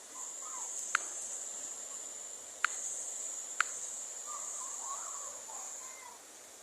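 A cricket trilling in one high, steady note that fades near the end, with three sharp clicks in the first four seconds.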